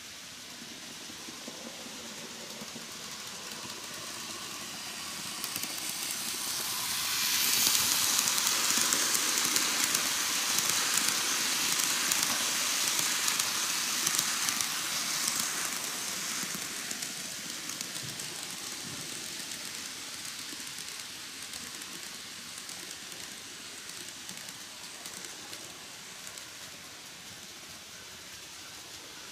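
N-gauge KATO D51 498 steam locomotive model pulling a train of passenger coaches along plastic model track, running with a light rattle of wheels on the rails. It grows louder as it approaches, is loudest for about eight seconds as it passes, then fades away.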